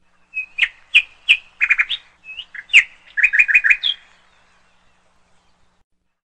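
A bird chirping: a run of sharp, high chirps and short trills, ending in a quick series of about five repeated notes, then fading out.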